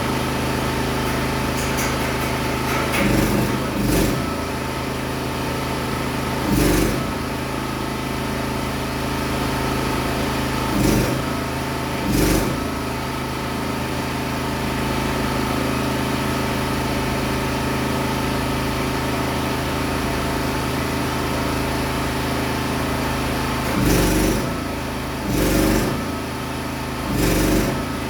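An engine running steadily, with brief louder swells several times.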